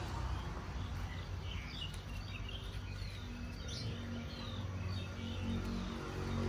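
Small birds chirping in short, scattered high notes, over a low steady hum.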